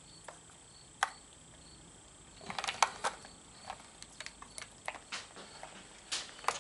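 Scattered light clicks and taps of multimeter probe tips and leads being handled and touched against golf-cart battery terminals, with a short cluster of them about two and a half to three seconds in.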